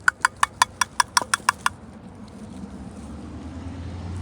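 Rapid mouth clicks, about six a second, made to call a cat over for food; they stop just under two seconds in. A low hum then slowly grows louder.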